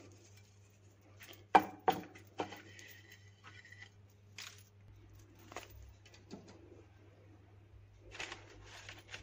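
A fork clinks sharply against a ceramic plate three times while breaded chicken is pressed into breadcrumbs. Soft, faint handling noises of the food and parchment-lined tray follow near the end. A low steady hum runs underneath.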